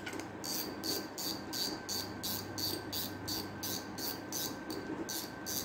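Spinning reel's drag being adjusted by hand, its clicker ticking evenly about three times a second as the drag is set neither too tight nor too loose.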